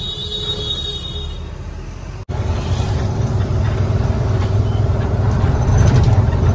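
Goods truck heard from inside its cab while driving: steady engine rumble and road noise. A thin high whine fades out in the first second and a half; after a brief dropout about two seconds in, the engine and road noise are louder.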